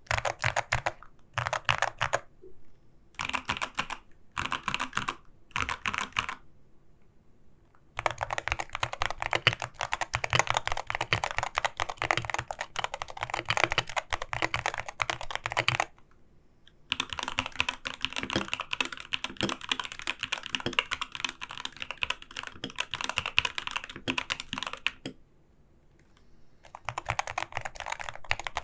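Typing on an Arbiter Studio Polar gaming keyboard: a few short bursts of key presses, then long runs of fast, continuous typing broken by brief pauses.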